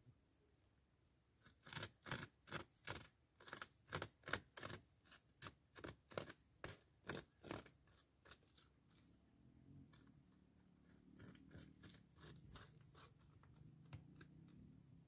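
North American beaver gnawing a tree trunk with its incisors: a run of sharp, crisp bites into the wood, about three a second, for several seconds, then a softer, lower chewing sound.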